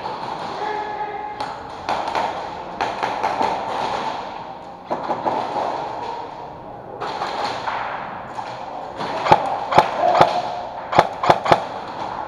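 Airsoft gunshots: two sharp cracks about half a second apart, then three more in quick succession a second later, over the scuffing and rustle of a player moving through plywood cover.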